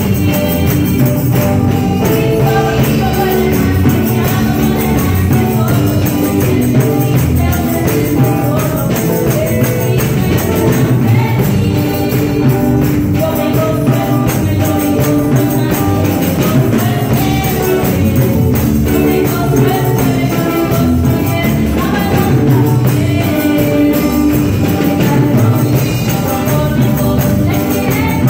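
Live gospel worship music through a PA system: a woman sings into a microphone over a band with electric bass and percussion keeping a steady beat.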